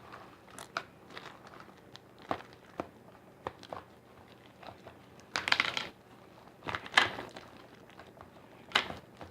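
Hands kneading and pulling sticky homemade slime: scattered small clicks and squelches, with a few louder crackling bursts about five and a half, seven and nine seconds in.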